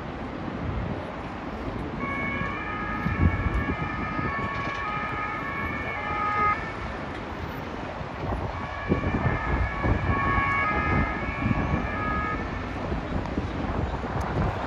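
Emergency-vehicle siren stepping back and forth between pitches, sounding in two stretches from about two seconds in and again past the middle, over the steady rumble of city traffic.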